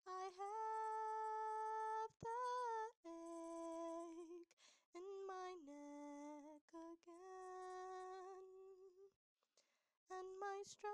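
A woman humming a slow, unaccompanied melody in long held notes, with short breaths between phrases.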